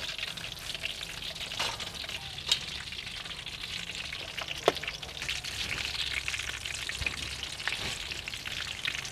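Flour-battered chicken breast pieces deep-frying in hot oil in a wok: a steady, dense sizzle. Two sharp clicks sound about two seconds apart, the second the loudest.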